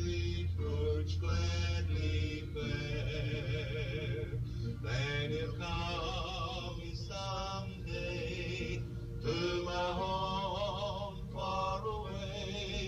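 Music: a singing voice with wavering vibrato, the notes changing every second or so, over instrumental accompaniment with a low bass note held at the start.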